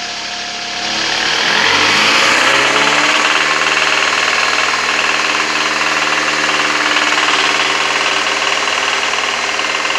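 Toyota Camry engine revved up and held at raised revs, with the frequent knock that comes only under throttle. The mechanic is trying to tell whether it comes from the VVT-i cam phaser or a connecting rod.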